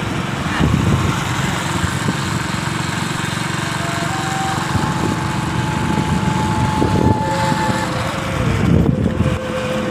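Small motorcycle engine running while riding along, heavily buffeted by wind rumbling on the microphone. A thin steady engine whine drops to a lower pitch about eight seconds in.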